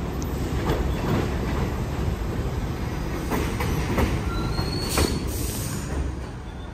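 New York City Subway 1 train of R62A cars pulling into an elevated station: a steady rumble of wheels on rail with repeated clicks over the rail joints, and a brief high squeal between four and five seconds in. The noise eases off near the end as the train slows along the platform.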